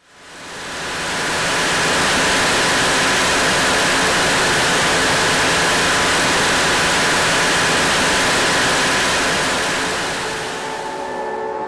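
Yacht engine-room machinery running underway: a loud, steady roar of diesel engines and blowers with faint steady whines, fading in over the first couple of seconds. Near the end the hiss falls away and lower, steadier tones come through.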